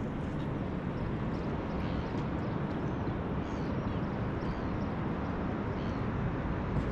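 Steady wind noise on the microphone, heaviest in the low end, with no strong single event.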